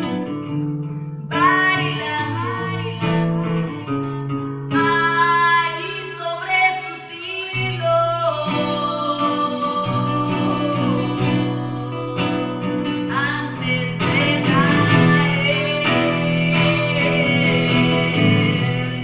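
Live acoustic music: a woman singing a sustained, gliding melody over plucked and strummed guitar.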